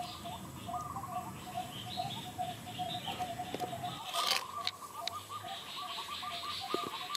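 Birds chirping in quick, repeated short notes, turning into a fast even series after a sharp click about four seconds in.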